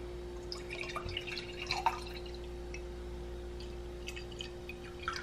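Tropical passion-fruit drink poured from a bottle into a stemmed wine glass: faint trickling with small drips and splashes. There is no fizzing, because the drink is flat.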